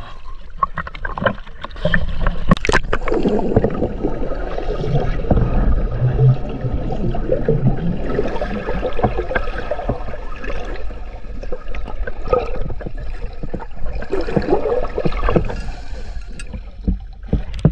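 Water splashing and sloshing, irregular and full of small knocks, with one sharp knock about two and a half seconds in.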